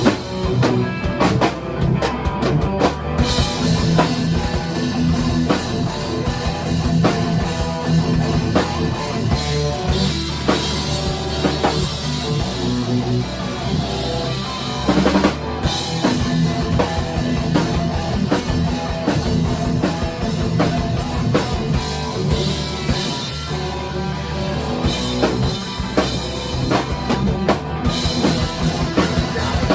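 Rock music played on drum kit and guitar, with steady drum hits throughout and no singing.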